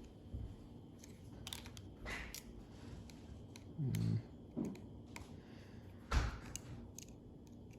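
Faint small clicks and taps of a precision screwdriver and tiny parts being handled on a phone, with a louder knock about six seconds in. A brief low voice murmur comes about four seconds in.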